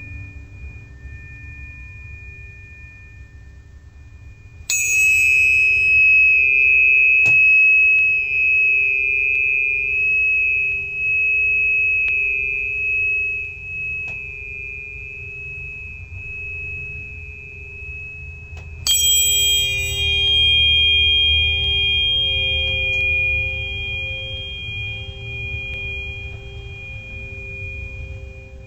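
A struck metal sound-healing instrument ringing with a high, pure tone. It is struck about five seconds in and again about nineteen seconds in, and each strike rings on for many seconds, slowly fading over a fainter lower tone.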